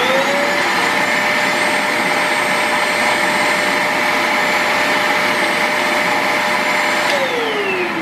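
Handheld vacuum cleaner motor with a narrow crevice nozzle, switched on and whining up to speed in the first half-second, then running steadily with a high whine over rushing air. About seven seconds in it is switched off and the whine falls in pitch as the motor winds down.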